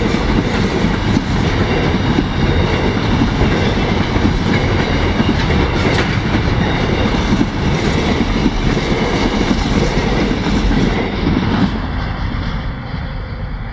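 Freight train of container wagons rolling past, a steady rumbling of steel wheels on the rails with faint clicks, fading near the end.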